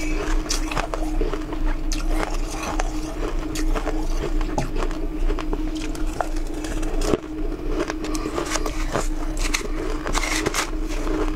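Crushed ice crunching as it is chewed, in dense irregular crackles, along with a plastic spoon scraping through ice in a metal bowl. A steady low hum runs underneath.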